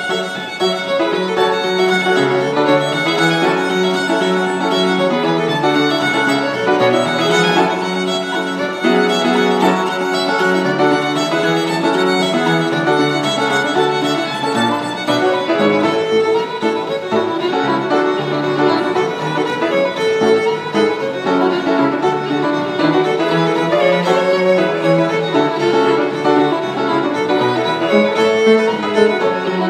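Fiddle playing an Irish traditional-style tune, with piano accompaniment underneath.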